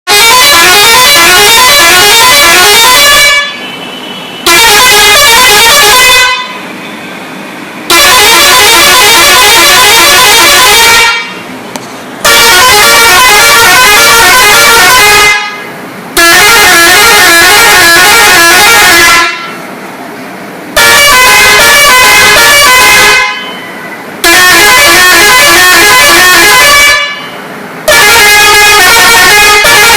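Basuri six-trumpet, 16-tone telolet musical horn playing a run of short melodic tunes, loud, each tune a quick series of stepped notes lasting about two to four seconds, with brief pauses between about eight tunes.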